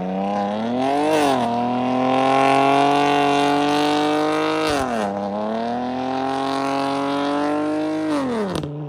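Car engine revving hard on snow, as when a car spins its wheels trying to get free. The revs climb and hold high twice, dropping back in between and again near the end.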